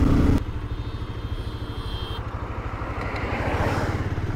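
Bajaj Pulsar 220F's single-cylinder engine heard from the rider's seat: a loud steady note drops off sharply about half a second in as the throttle is closed, and the engine then runs on at low revs with an even beat while the bike slows and turns.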